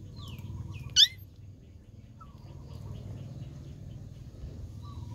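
Puppy squealing: a faint falling whine, then one loud, short, high-pitched yelp about a second in.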